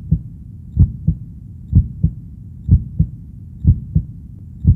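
Heartbeat sound effect: slow lub-dub double thumps, about one pair a second, over a low steady hum.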